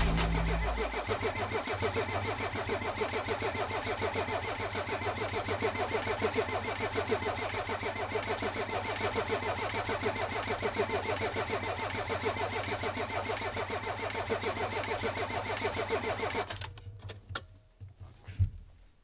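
Starter motor cranking a Mercedes OM617 five-cylinder diesel in an even, rhythmic chug without it firing. The injector lines are left loose at the injectors to bleed air out of the hard lines. The cranking stops suddenly near the end, followed by a few faint clicks.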